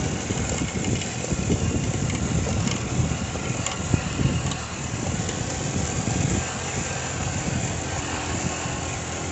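Motorcycle running along at speed on a dirt track: steady engine and road noise with a few short knocks.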